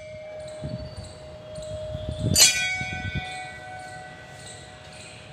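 Temple bell struck once about two and a half seconds in, ringing and slowly dying away. The ring of a strike just before is still sounding at the start.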